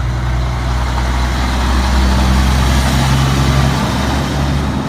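Truck engine running steadily: a low rumble with a hiss of noise over it, growing a little louder in the middle.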